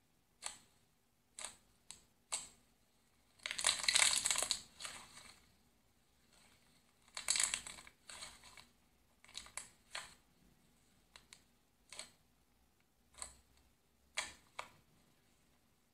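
Hands squishing, folding and poking thick slime: a series of short sticky pops and crackles, with two longer, louder stretches of crackling squishes about four and seven seconds in.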